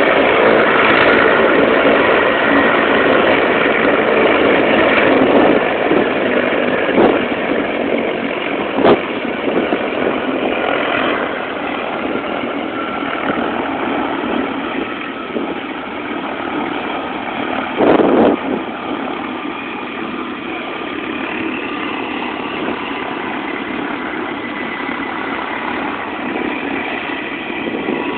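Helicopter engine and rotor running steadily, slowly getting quieter, with a few short knocks, the loudest about eighteen seconds in.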